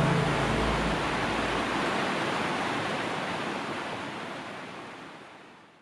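Steady rush of a mountain stream running full over rocky cascades, fading out gradually to silence; the last notes of background music die away in the first second or so.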